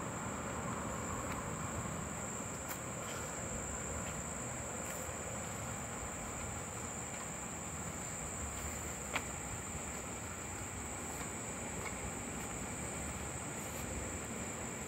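Steady, high-pitched chorus of insects ringing without a break, over a constant low rushing background noise.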